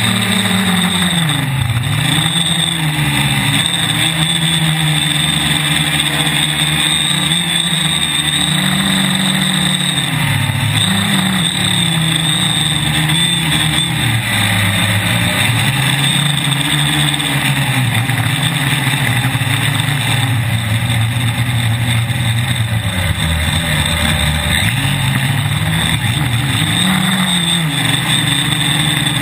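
Quadcopter's electric motors and propellers buzzing, heard from on board, the pitch rising and falling every few seconds as the throttle changes, with a steady high whine over it.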